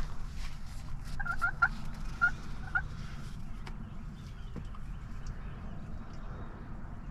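Turkey calling: a quick run of four short notes about a second in, then two more spaced notes, over a steady low background rumble.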